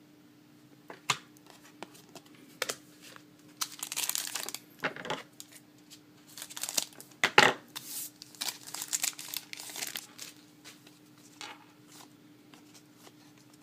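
Plastic or foil trading-card wrapping crinkling and tearing in irregular bursts, with small clicks of cards and packaging being handled, over a faint steady hum.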